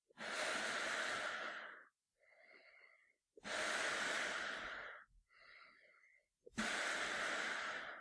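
A man breathing through a gas mask in slow, regular cycles. Three loud breaths of about a second and a half each alternate with two fainter, shorter ones.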